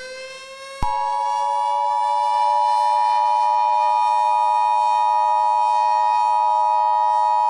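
Emergency Alert System two-tone attention signal (853 and 960 Hz sounded together), starting about a second in and holding steady and loud. Underneath, a civil defense siren slowly winds up in pitch and levels off.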